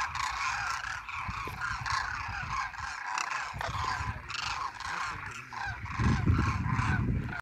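A large flock of long-necked wading birds, such as cranes, calling in flight: many short overlapping calls, with a low rumble rising near the end.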